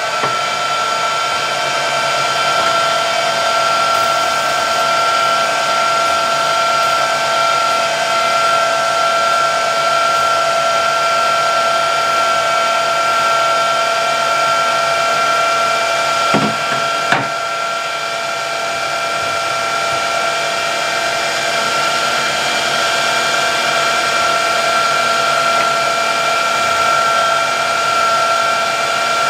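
Metal lathe running at a steady speed with a constant whine, with two brief knocks a little past halfway.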